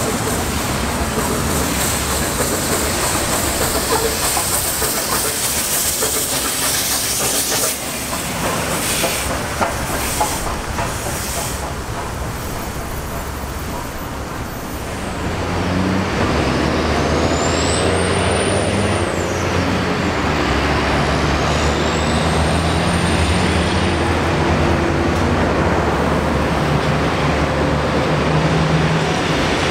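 Heritage train passing: a diesel locomotive and the 6029 Garratt steam locomotive go by, followed by carriages rolling on the rails. About halfway through, the locomotives' engines give a steady, low drone as the train moves away.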